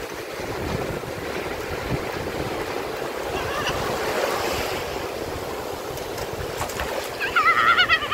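Small sea waves washing and fizzing up a sandy shore, with wind buffeting the microphone. Near the end come a child's loud, high, wavering squeals.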